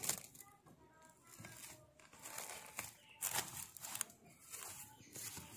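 Plastic cling film crinkling as it is stretched and pressed over a bowl, in several short bursts.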